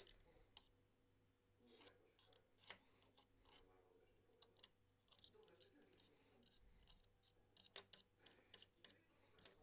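Faint, scattered sharp clicks and taps of small hard objects, coming more often in the second half.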